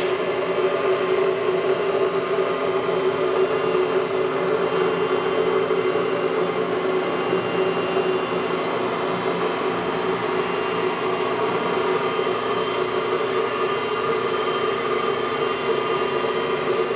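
Steady hum and whir of running machine-shop machinery, holding several constant tones without change.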